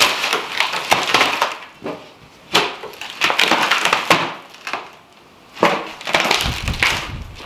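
Wood cracking and splintering in a series of loud, noisy bursts with sharp cracks.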